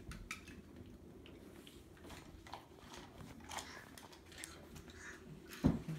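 Faint scattered clicks and rustles of handling, with a single low thump near the end.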